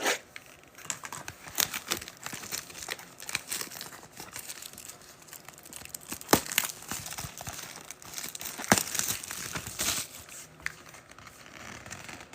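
Plastic wrapping crinkling and tearing in irregular crackles and rustles as a sealed box of trading cards is opened, with a few sharper crackles in the middle.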